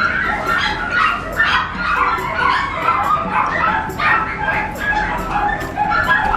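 Puppies yipping and barking in quick succession, many short high calls with a few whimpers among them.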